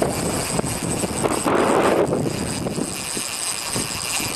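Wind buffeting the camera microphone: a steady low rumbling noise, with a stronger gust about a second and a half in.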